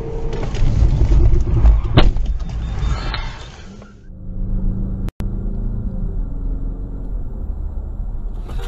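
Car driving, heard through a dashcam: steady engine and tyre rumble, with a single sharp click about two seconds in. The noise dips and changes abruptly about four seconds in, then runs on as a steadier, duller rumble with a faint hum.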